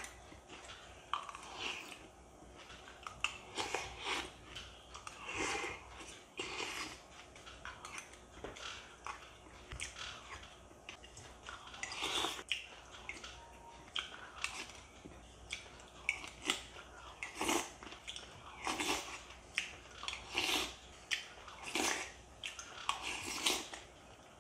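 A person eating a bowl of milk-soaked shredded wheat cereal with berries: repeated chewing and slurping of spoonfuls, with a metal spoon knocking and scraping against the ceramic bowl, about once a second in the second half.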